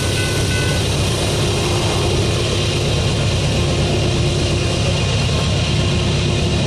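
A General Signals Type 3 electronic crossing bell stops about a second in as the crossing deactivates and the gates begin to rise. A steady low rumble continues throughout.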